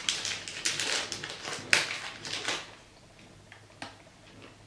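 Paper-and-foil chocolate bar wrapper crinkling and rustling as it is handled, with a sharp crackle about two seconds in. After that it goes much quieter, with only a few faint ticks.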